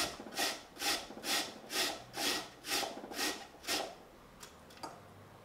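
Raw potato being grated on a stainless steel box grater into a metal bowl, with one rasping stroke about every half second. The strokes stop about four seconds in, followed by a couple of light knocks.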